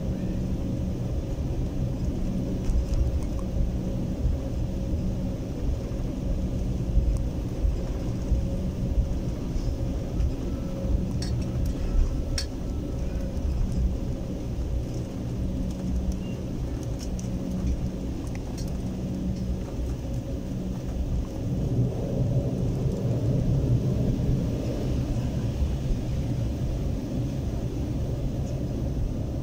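Cabin noise of a jet airliner taxiing after landing, heard from a window seat: a steady low rumble with a faint hum that comes and goes. The rumble grows louder about twenty-two seconds in.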